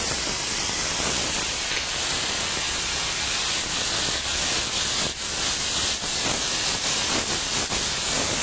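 White vinegar sizzling steadily in a hot sauté pan with olive oil, diced shallot, dried tarragon and cracked black pepper, boiling off to make a dry tarragon reduction, with scattered small crackles.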